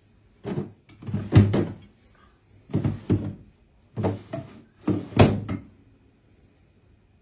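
Dresser drawers being handled: a series of knocks, thuds and sliding scrapes in about five quick clusters, the last near five and a half seconds in.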